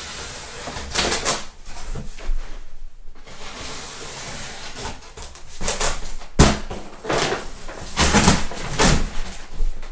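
Cardboard shipping box being cut and pulled open: irregular bursts of scraping and rustling, with a sharp knock about six and a half seconds in.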